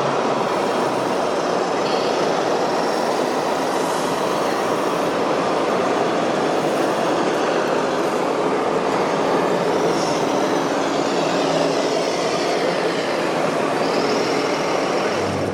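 Continuous, steady mechanical running noise, with a few faint, short, high squeals now and then.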